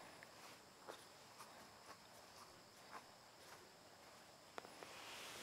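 Near silence: faint outdoor background with a few scattered faint ticks.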